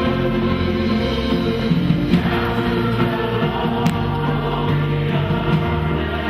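Choir singing, with long held low notes sounding underneath.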